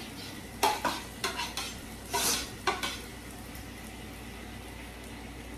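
A metal fork scraping and clinking against a small frying pan as shrimp are tipped out of it into a hot skillet, with a short burst of sizzling as they land. After about three seconds the clinking stops, leaving a steady low frying sizzle.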